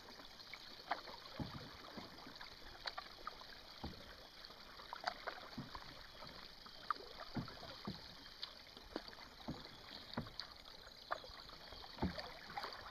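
Canoe paddles dipping and pulling through calm water, with small splashes and drips at an uneven pace of about one stroke a second.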